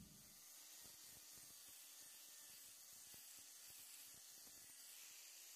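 Very faint steady hiss with a low hum: an angle grinder's flap disc sanding wood.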